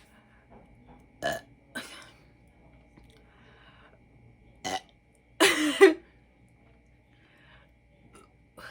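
A woman burping from drinking carbonated soda: a few short burps, then a longer, louder burp about five and a half seconds in.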